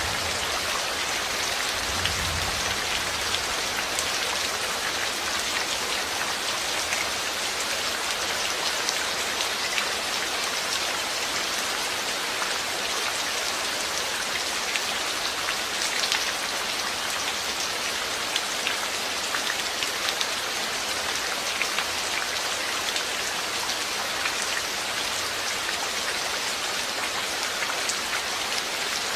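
Steady rain falling, with many close drops pattering on a surface.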